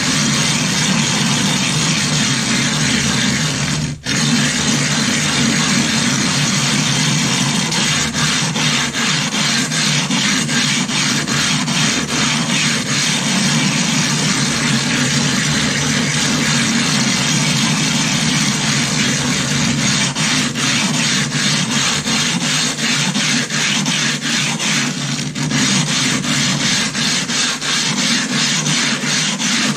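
Silicon carbide sharpening stone rubbed back and forth on a glass plate in a water slurry of loose coarse silicon carbide grit: a continuous gritty grinding as the stone's face is lapped flat, with a brief break about four seconds in.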